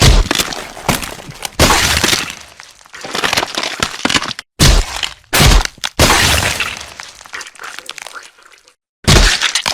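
Stock blood-and-gore sound effects played one after another: a series of sudden cracking, breaking impacts, each starting sharply and trailing off over a second or two, with a brief silence shortly before the next one starts near the end.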